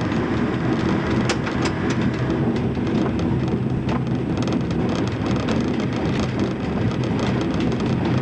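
Diesel railcar running along a branch line, heard from the driver's cab: steady engine and wheel-rolling noise with a few sharp clacks of the wheels over rail joints.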